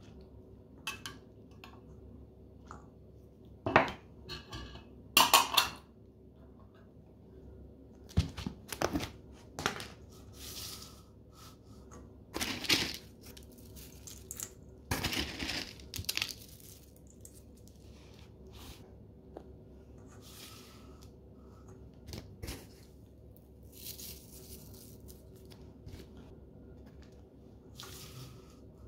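Metal spoon clinking and scraping against a stainless steel bowl and a tin can as canned peas and dry toppings are added to a salad: scattered clinks and short rustling bursts, the loudest a few seconds in.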